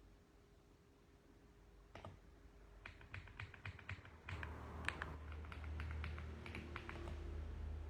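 Mechanical keyboard typing: the first key clicks come about two seconds in, then a quick, uneven run of keystrokes. A low hum comes in underneath about halfway through.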